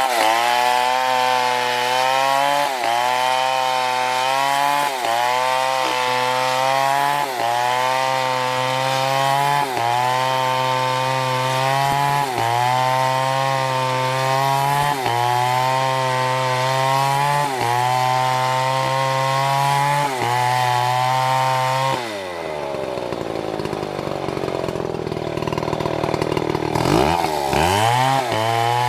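Chainsaw running at high revs while cutting, its pitch sagging briefly about every two seconds as the chain loads up in the wood. About three quarters of the way through the engine drops off, runs lower for a few seconds, then revs back up near the end.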